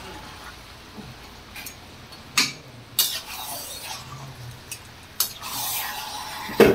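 Metal spatula stirring marinated chicken pieces in a kadai, scraping through the meat with several sharp knocks against the pan, the loudest near the end.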